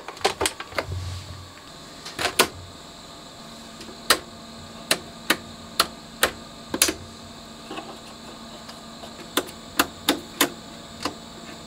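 Plastic slide switches on a Telefunken CR100 boombox clicking as they are flicked one after another, a sharp click every second or so, with no sound at all from the set: it is dead, with no life at all.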